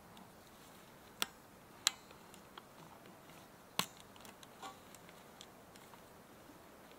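A few short, sharp clicks against a faint outdoor background: three louder ones within about three seconds, then a couple of fainter ticks.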